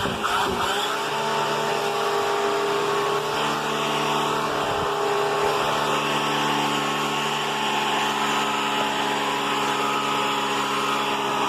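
Vacuum cleaner motor running steadily with a pitched whine. Its pitch wavers and then settles about a second in.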